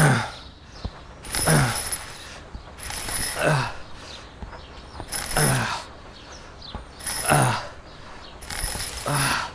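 A mechanism creaking in a regular rhythm, about once every two seconds, each creak sliding down in pitch.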